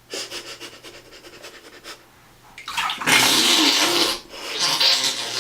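Bath water splashing in a tub, with a baby's voice mixed in. It is faint at first, then comes in two loud spells from about halfway.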